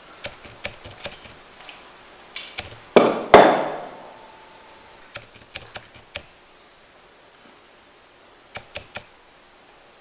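Metal tools and fork parts clinking and knocking as the fork's inner cartridge is worked loose and taken out. There are scattered light clicks, then two loud metallic knocks about three seconds in, the second one ringing briefly, and a few more clicks later on.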